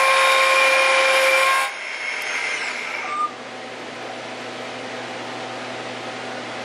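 Live-tooling spindle of a CNC lathe thread-milling stainless steel pipe dry with an 8-flute insert thread mill at 4000 rpm: a loud, steady, high cutting whine that stops suddenly about a second and a half in. The spindle then winds down, and the machine settles to a steady low hum.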